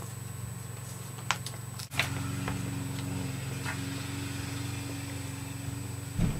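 Steady low background hum with a few faint clicks and rustles from a glossy magazine being held and leafed through, a short dropout about two seconds in, and a brief dull bump just before the end.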